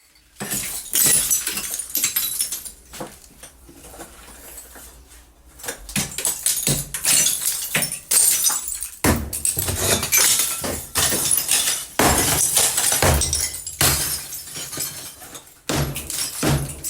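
Hammer blows smashing into a wall, each strike followed by crumbling and falling debris. The blows come in a rapid run, ease off into a lull for a couple of seconds, then resume harder and denser with heavy thuds.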